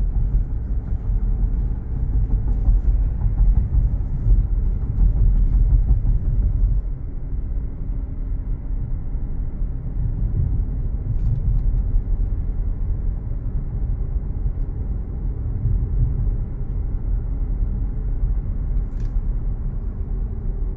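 Car driving along a road, heard from inside the car: a steady low rumble of tyres and engine, a little louder for about the first seven seconds, then easing.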